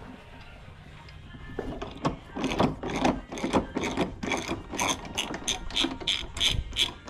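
Socket ratchet clicking as it turns a lug nut off the spare tire, a quick, even run of clicks, about four a second, that starts about a second and a half in.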